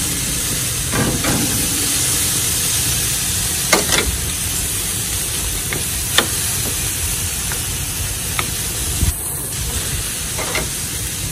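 Beef steak, pork, a whole fish and sweet potatoes sizzling on a barbecue grill: a steady hiss with scattered sharp pops and crackles.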